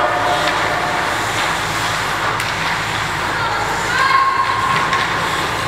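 Youth ice hockey in play: a steady scraping of skates on the ice, a few sharp clacks of sticks and puck, and a voice calling out about four seconds in.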